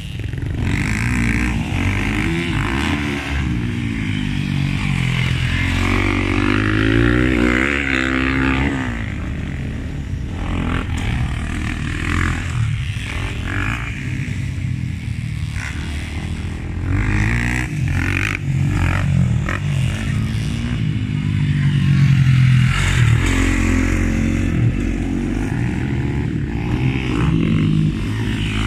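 Motocross dirt bike engines revving hard and backing off as riders work round a dirt track. The pitch climbs and drops again and again, and swells louder as a bike comes close.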